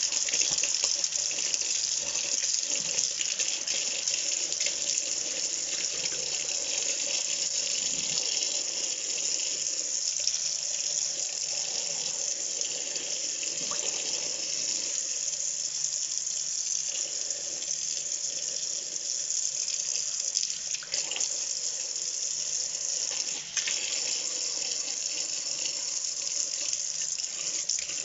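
Kitchen tap running steadily, water splashing into the sink as fermented tomato seed is rinsed under it.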